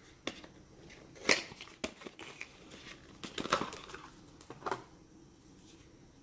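Handling noise from a small cardboard filter-kit box being opened and a leatherette filter pouch pulled out: rustling with a string of sharp clicks and taps, the loudest about a second in and a busy cluster around the middle.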